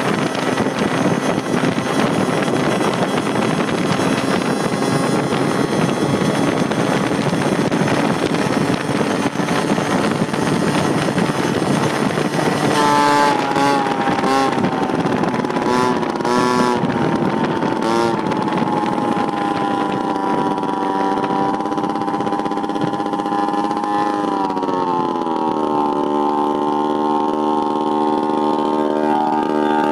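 Honda Urban Express moped engine running flat out under heavy wind noise. About 13 seconds in, the sound changes abruptly to a raw, pitched engine buzz that stutters several times, then holds steady and drops in pitch as the moped slows: the sound of its exhaust having snapped.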